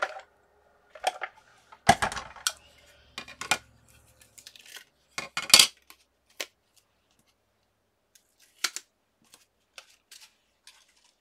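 Clatter of a Sizzix Sidekick die-cutting machine and its cutting plates being handled and set down. There is a heavy knock about two seconds in, a few clacks, and the loudest, sharpest clack at about five and a half seconds. After that come sparse faint clicks as a thin metal die is worked off the cut paper piece.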